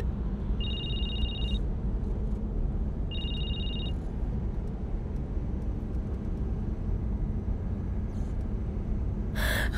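Phone ringing tone: two short electronic two-note beeps, each about a second long and a couple of seconds apart, as an outgoing call rings. Under them runs the steady low rumble of a car cabin on the move.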